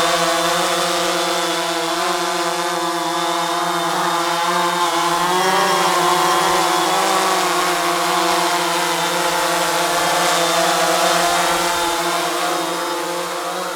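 DJI Phantom 3 Professional quadcopter in flight: its four motors and carbon-fibre-reinforced propellers give a steady buzzing whine whose pitch wavers slightly up and down as the drone holds position.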